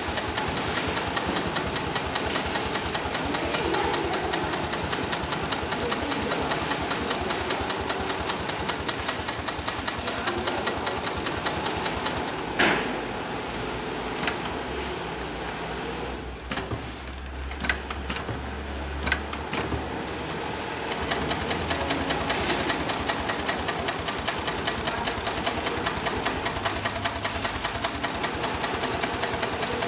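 Sailmaster 366-76-12 heavy-duty industrial zigzag sewing machine stitching sailcloth with a rapid, even knocking rhythm. Roughly halfway through, the stitching stops for several seconds, leaving a few clicks and a low hum, then runs again at the same pace.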